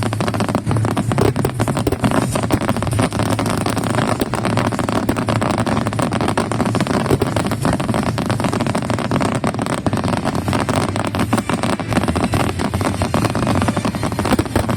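Fireworks display: a steady, dense crackle of many shells bursting, over a low rumble.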